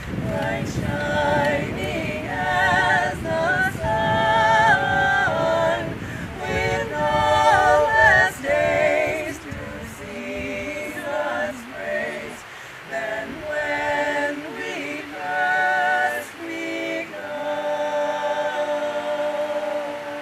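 Several voices singing together unaccompanied, in a slow song with long held notes. A low rumble sits under the singing for the first half and then drops away.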